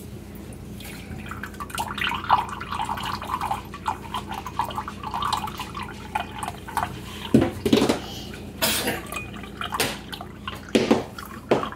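Distilled water poured from a plastic gallon jug into a glass measuring cup, trickling in a thin stream, with a few louder sudden sounds in the second half.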